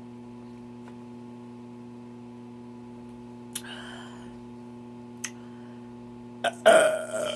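A woman's loud burp near the end, brought up by drinking carbonated lemon-lime pop, over a steady electrical hum.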